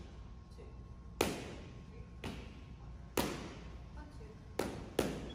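Boxing punches landing: five sharp hits about a second apart, the last two in quick succession.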